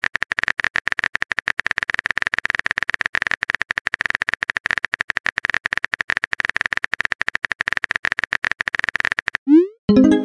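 Rapid, even clicking of a phone-keyboard typing sound effect. Near the end it stops and a short rising swoosh and a pitched tone sound: the message-sent effect.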